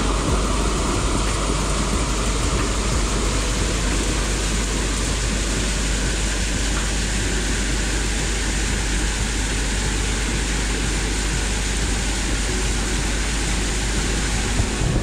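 Steady rushing of water from a dewatering pump's discharge pipe gushing into a fast-flowing river, with a constant low rumble underneath.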